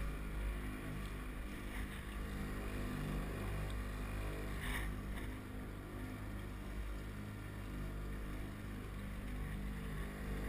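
Small outboard motor running steadily at constant speed, pushing a small boat along.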